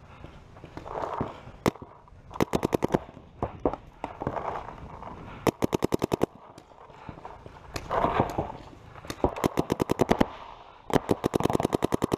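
Electro-pneumatic paintball marker, a Shocker RSX, firing rapid strings of shots at about a dozen a second, four volleys in all. Softer noisy swells come between the volleys.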